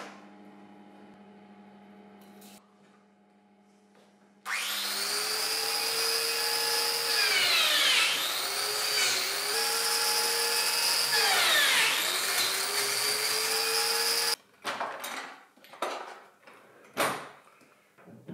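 Biscuit joiner running with a steady high whine for about ten seconds, its pitch sagging and recovering twice as the blade plunges into the plywood edge to cut biscuit slots. It cuts off abruptly, followed by a few short knocks of wood being handled.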